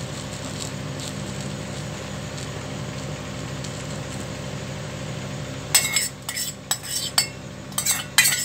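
Metal spoon clinking and scraping against a dosa griddle (tawa) as egg mixture is spread over an uthappam, a quick run of clinks starting about two thirds of the way in. A steady low hum runs underneath.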